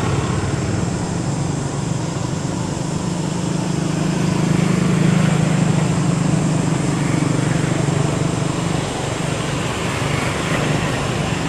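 A motor running steadily with a low drone that swells a little midway.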